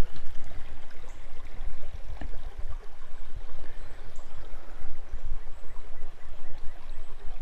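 Creek water running and trickling over rocks, a steady rushing with a low rumble underneath.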